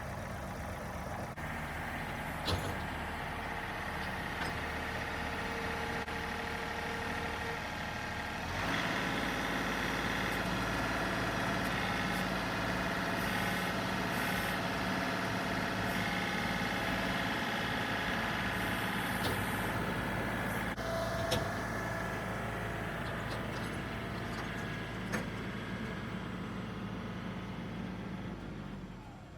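Tractor engine running under load as its forks lift a heavy tree. The engine gets louder about a third of the way in, holds steady while working hard, and drops away near the end.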